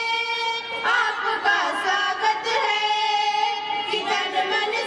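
Three schoolgirls singing together into microphones, in long held notes with short breaths between phrases.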